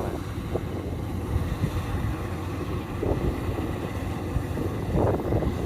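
Kubota DC-93 combine harvester running steadily at work, a continuous low engine drone with wind on the microphone.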